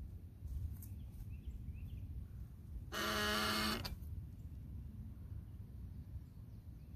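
A single pitched animal call lasting about a second, a few seconds in, steady in pitch with a rich stack of overtones.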